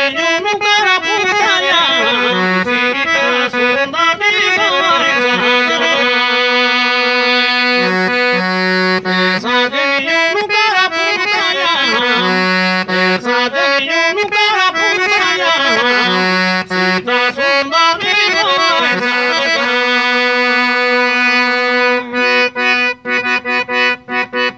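Harmonium playing a folk melody: quick runs of notes over steady held drone notes, breaking into short detached notes near the end.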